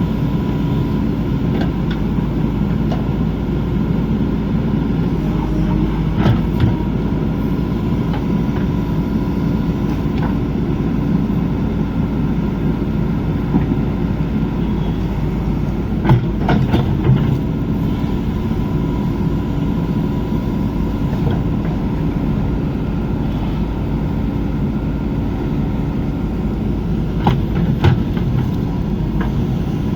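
JCB backhoe loader's diesel engine running steadily under digging work, with a few short metallic clanks: one about six seconds in, a cluster near the middle, and another near the end.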